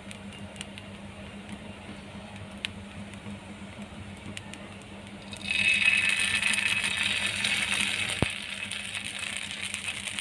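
Semolina batter sizzling on a hot nonstick tawa as it is ladled on: a faint steady hum at first, then a hissing sizzle that starts suddenly about halfway through and eases a little later, with a single sharp click near the end.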